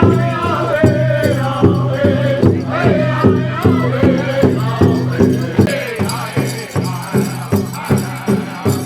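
Background music with a steady, even beat, a shaker rattle and a melody over a low bass line.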